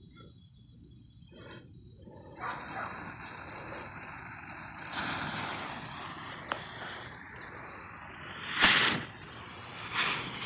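Smoke grenade burning with a steady hiss that starts about two and a half seconds in and swells louder a few times, loudest near the end.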